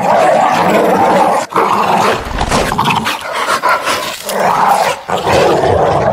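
A dog growling and barking in several loud stretches, with short breaks between them.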